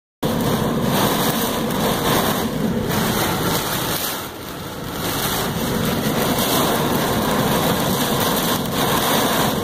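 Heavy wind-driven thunderstorm rain hitting a car's roof and windshield, heard from inside the car: a steady, dense rush that eases briefly about four seconds in.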